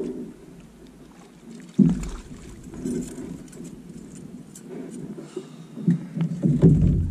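Small fishing boat on a lake: an uneven low rumble with irregular thumps, the sound of the hull moving on the water.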